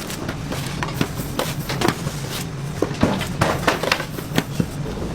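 Bakery production machinery running with a steady low hum under irregular sharp clicks and clatter.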